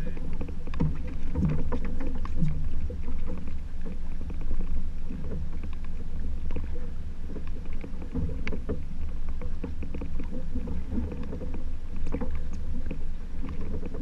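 Steady low rumble of a sport-fishing boat at sea, its engine running, with scattered small clicks and knocks.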